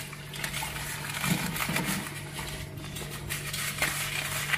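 A plastic herb sachet crinkling as dried herbs are shaken out of it over a pan of bolognese sauce, with a few light clicks and a steady low hum underneath.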